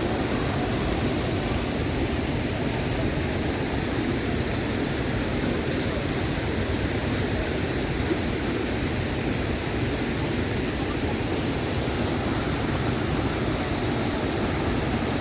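Lower Düden Waterfall's falling water giving a steady rush that does not change.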